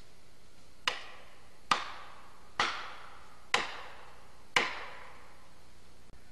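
Five sharp blows about a second apart, each ringing briefly as it dies away: a hand tool striking hard, as in chopping or hammering.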